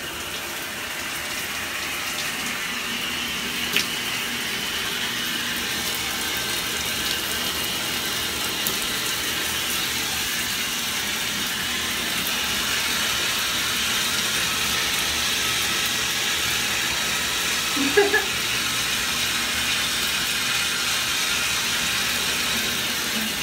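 Shower running steadily, its spray falling on a person rinsing off in a tiled shower stall.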